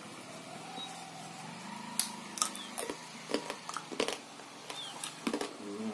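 A fried crab leg's hard shell being bitten and chewed: a series of sharp cracks and crunches, starting about two seconds in and coming every half second or so.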